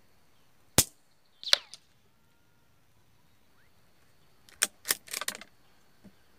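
A single .22 LR rifle shot, a sharp crack just under a second in, followed by a short ringing sound that falls in pitch. Around four and a half seconds in comes a quick run of metallic clacks and clicks, typical of the bolt being worked to chamber the next round.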